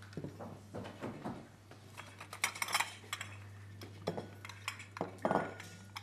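Small ceramic bowls and saucers clinking and clattering as they are picked up and set down among stacks. It is a run of knocks, loudest about two and a half seconds in and again a little after five seconds, with a low steady hum underneath.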